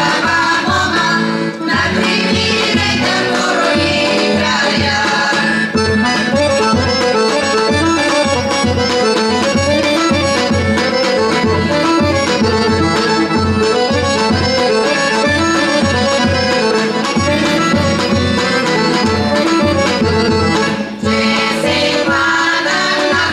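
Accordion and tapan (large double-headed drum) playing a Bulgarian folk tune, the drum keeping a steady beat under the accordion's melody, with a brief break near the end.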